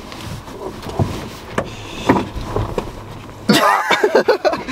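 Knocks and rustling of people shifting about inside a car, then loud laughter from about three and a half seconds in.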